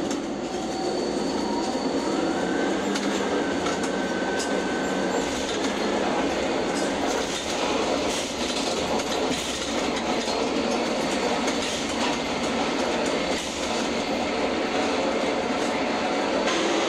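Ship-to-shore container crane's hoist and trolley machinery running steadily, heard from the operator's cab as the empty spreader is hoisted off a truck chassis and carried out over the ship's hold, with a faint whine for a few seconds early in the lift.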